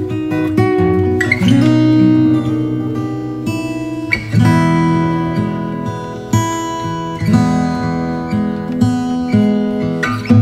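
Background music: an acoustic guitar instrumental, with plucked and strummed chords.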